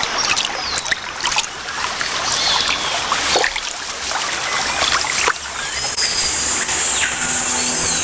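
Water splashing and sloshing around a swimming jaguar as it moves through the river and pushes in among floating plants at the bank, with irregular sharper splashes. Music comes in near the end.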